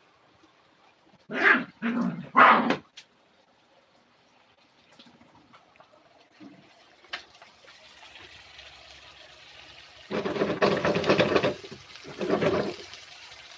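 A dog barks three times in quick succession. Then chicken intestines frying in oil in a pan sizzle, the sizzle building and growing louder and crackly for a couple of seconds near the end.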